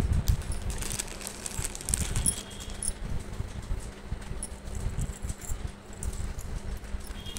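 Clear plastic packet crinkling and a beaded gold-coloured necklace set clicking lightly as it is pulled out and laid down by hand, with soft handling bumps.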